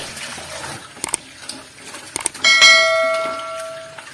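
Sharp clicks, then a single bright bell ding that rings out and fades over about a second and a half: the sound effect of a subscribe-button and notification-bell animation.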